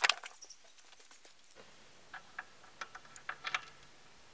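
Faint, light metallic ticks and clicks, a few scattered ones from about two seconds in, as a threaded exhaust gas temperature sensor is turned in by hand.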